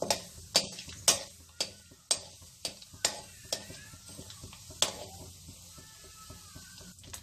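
A perforated steel ladle stirs urad dal in hot oil in a metal kadai for a tempering, knocking against the pan about twice a second for the first few seconds and once more later. A light sizzle of the frying dal runs underneath.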